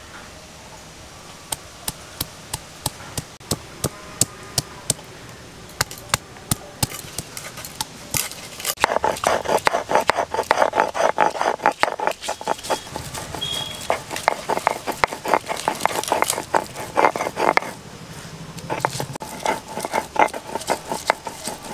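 Ginger and garlic being crushed and ground on a stone grinding slab with a stone roller (shil-nora). It starts as separate knocks about twice a second, then a third of the way in turns into a long run of quick, close strokes.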